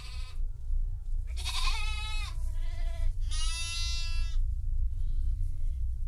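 Sheep-like bleating: two long, wavering bleats about a second each, then a shorter, fainter one near the end, over a steady low rumble.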